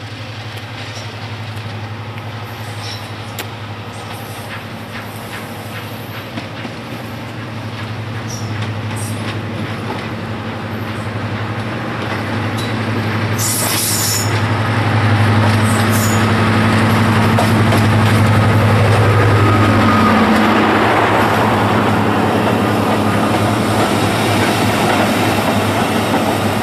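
Diesel locomotive hauling coaches approaches and runs past the platform. Its engine drone grows steadily louder, with a short hiss about halfway. The engine note drops in pitch as it goes by, and then the coaches roll past with wheel noise.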